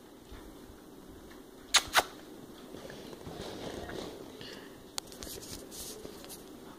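Two sharp knocks about a quarter of a second apart, then a single fainter click a few seconds later, over faint rustling room noise.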